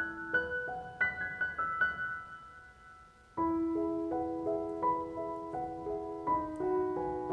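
Background music: a slow, gentle melody of single struck notes that fades almost to nothing, then a new, louder phrase begins about three and a half seconds in.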